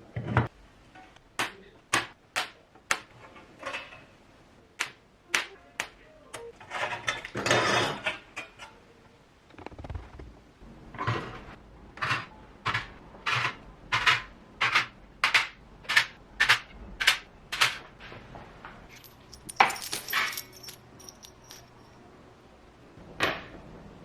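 Hand work on small parts in a workshop: a long run of sharp taps and clicks, often about two a second, broken twice by a short rushing burst.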